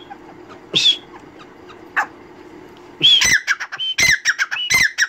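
Caged grey francolin (dakhni teetar) calling loudly. A single whistled call comes about a second in, then from about three seconds a quick run of repeated calls, several a second, each note sliding down in pitch.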